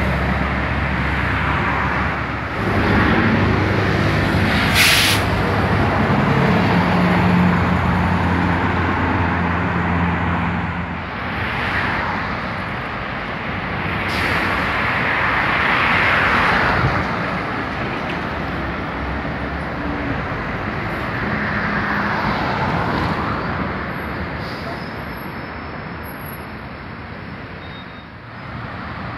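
City bus engines and heavy road traffic passing on a multi-lane avenue, with a bus engine's low drone in the first ten seconds and a short air-brake hiss about five seconds in. Further vehicles swell past and fade several times.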